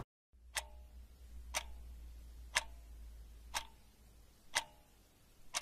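A clock ticking evenly, one tick a second, each tick with a short metallic ring, over a faint low hum.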